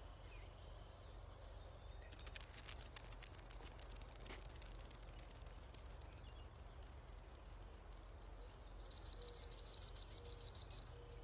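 Dog training whistle blown in a quick series of short, even toots, about six a second, starting near the end and lasting about two seconds.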